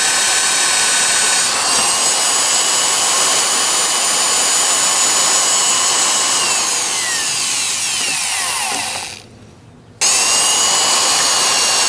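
Power tool's electric motor running at full speed with a high whine. About seven seconds in it spins down, its whine falling in pitch, goes nearly quiet for a moment, then runs at full speed again from about ten seconds in.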